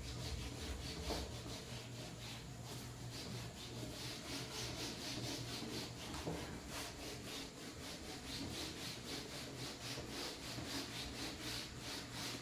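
A cloth rubbing back and forth across a whiteboard in repeated quick strokes, wiping off marker writing.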